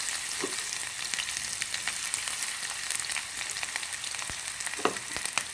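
Cauliflower florets in gram-flour batter deep-frying in hot oil, a steady sizzle with constant small crackles. A few sharper knocks come near the end.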